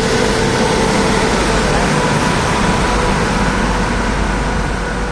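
Steady running noise of a moving train, a continuous loud rumble with a faint steady hum through it.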